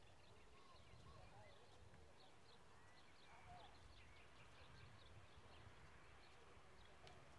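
Near silence: faint outdoor background with a low steady rumble and scattered faint high chirps.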